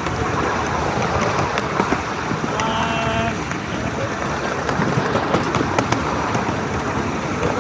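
A miniature live-steam train running, heard from the ride: a steady rush of running noise with scattered sharp clicks, and a short steady pitched tone just under a second long about three seconds in.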